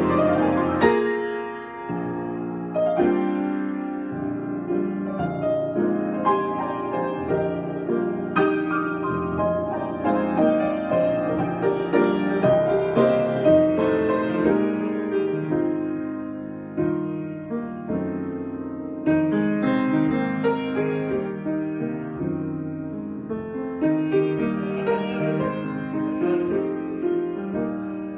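Solo piano improvisation: a steady flow of struck notes and chords left to ring, with no other instruments.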